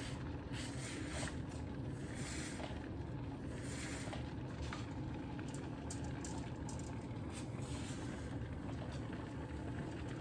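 Hilife handheld garment steamer running steadily as it is passed over a hanging dress, a continuous even steam noise with a few faint ticks.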